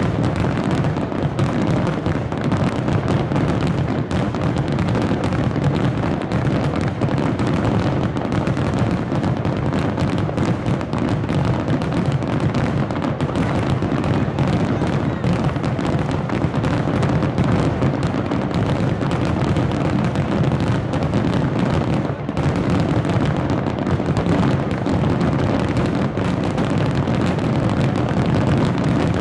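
Fireworks display in a dense barrage: many shell bursts and crackles overlap into a steady, loud rumble, with a brief lull about two-thirds of the way through.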